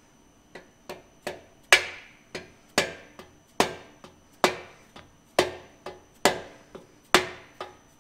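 Orange mallet tapping a cylinder repair sleeve into the bored cylinder of a 258 AMC straight-six block, starting its press fit. A steady run of strikes a little under a second apart, the heavier ones ringing briefly, with lighter taps between.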